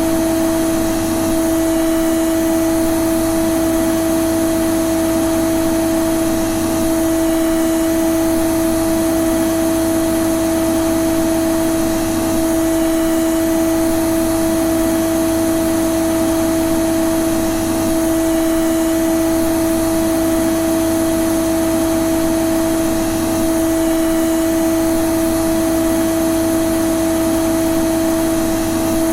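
Vacuum cleaner running steadily and unchanging: a constant pitched motor hum over a rush of air.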